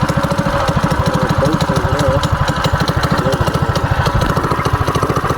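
Mini bike's 212 cc single-cylinder four-stroke engine idling steadily with an even, rapid pulse, running on its first start-up after being put back together.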